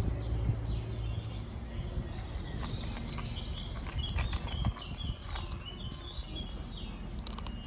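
Kittens crunching and chewing dry kibble, with many small crunchy clicks. A bird chirps in the background around the middle, and a low rumble fades out in the first second or so.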